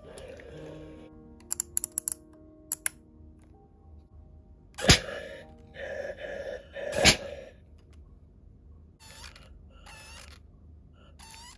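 Braun TexStyle 3 steam iron in use on a t-shirt, over soft background music. There is a quick run of clicks, then two sharp knocks a few seconds in, and short hissing squirts of the iron's water spray near the end.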